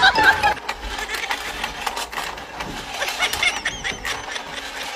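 Battery-powered penguin staircase slide toy running: a small motor whirring with rapid plastic clicking from the moving stair mechanism as the penguins climb and slide down the track.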